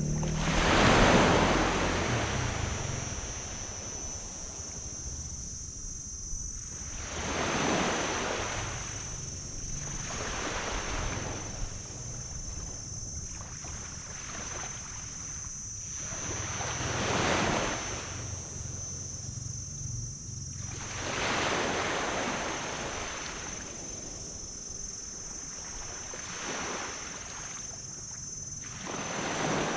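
Small waves breaking and washing up on a black sand beach, a swell of surf about every four to five seconds, over a steady high hiss. A low rumble fades away at the start.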